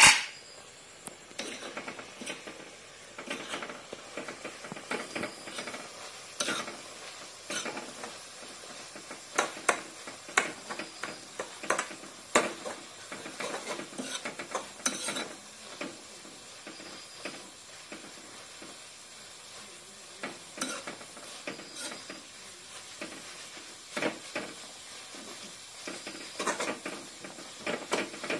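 Silkworm pupae and roselle leaves stir-frying in a kadai, a metal ladle scraping and clinking irregularly against the pan over a steady sizzle. It opens with one loud metallic clank as the aluminium lid comes off.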